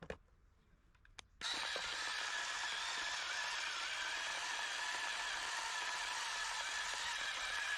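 A few faint clicks, then a loud steady hiss that starts abruptly about a second and a half in and holds even.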